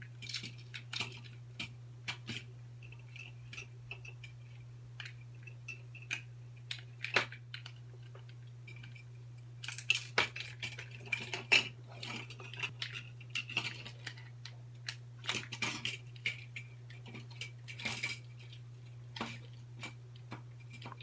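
Scattered clicks, taps and scrapes of small hand tools working on a cheap plastic headphone ear cup as it is taken apart. The handling is busiest about ten seconds in and again around fifteen to eighteen seconds in, over a steady low hum.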